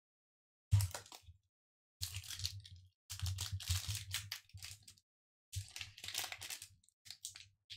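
The foil wrapper of a Pokémon booster pack crinkling and tearing as it is ripped open by hand, in several short crackly bursts.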